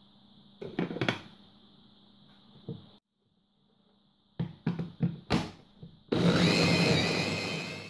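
A few plastic knocks as the lid and motor unit are fitted onto a hand blender's mini chopper bowl. About six seconds in, the chopper motor starts with a whine and runs, chopping boiled eggs and avocado.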